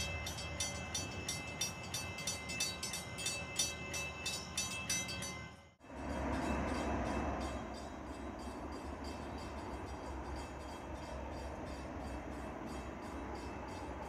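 Grade-crossing bell ringing rapidly and evenly. About six seconds in, it gives way to the low, steady rumble of a distant train approaching on the line.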